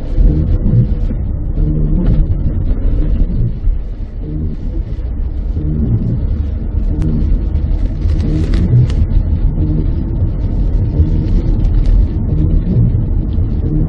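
Car driving on a rain-soaked road in a wet-season downpour, heard from inside the cabin: a steady low rumble of engine, tyres and wind, with scattered sharp ticks.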